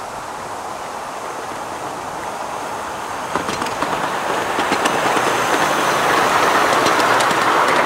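A 7¼-inch gauge miniature steam train with passenger cars running past, its rumble growing louder as it draws near. From about three seconds in, the wheels click over the rail joints.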